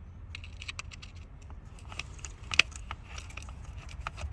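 Irregular small metallic clicks and clinks of hand tools working a bolt loose in an engine bay, busier in the second half with one sharp click about two and a half seconds in, over a steady low hum.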